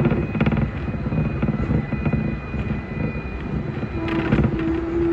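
Hong Kong double-deck electric tram running along its rails, heard from on board: a steady rumble with sharp clicks and clatter from the wheels on the track. About four seconds in, a strong steady hum sets in and holds.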